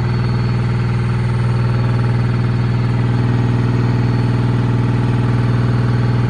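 Sharp ES-FB7145W washing machine running with a loud, steady droning hum and a fast, even pulse, a noise its owner calls horrible. A higher tone in the drone fades away in the first second or so.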